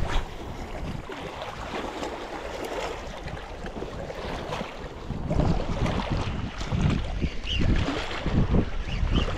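Wind buffeting the microphone in uneven gusts, heavier from about halfway through, over a wash of water lapping at the shore.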